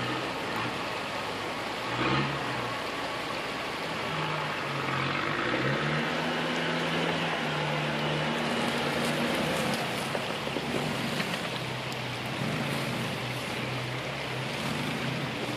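Toyota 4Runner's engine running at low revs as the SUV crawls over a rocky trail, with revs picking up about five seconds in and holding. There is a brief knock about two seconds in.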